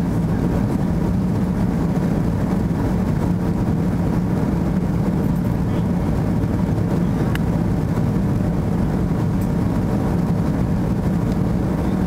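Steady cabin noise of an Airbus A330 in flight: jet engine and airflow noise heard from inside the passenger cabin, an even rushing with a low hum.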